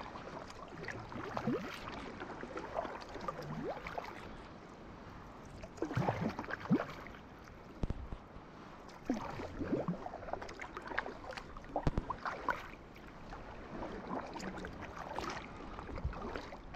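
Water sloshing and gurgling close to the microphone, with bubbly pops and splashes coming in surges every few seconds.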